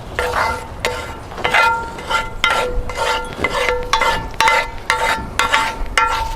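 Spatula scraping and knocking around a frying pan, about two strokes a second, with the metal pan ringing on each stroke.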